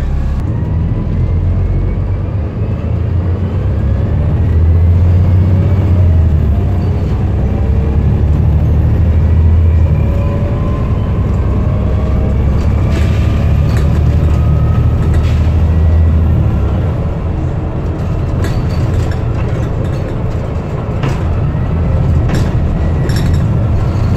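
Volvo B7TL double-decker bus heard from the upper deck while under way: the low drone of its diesel engine with a whine that rises in pitch as it accelerates, easing off about two-thirds of the way through. Occasional rattles and clicks from the bodywork and fittings.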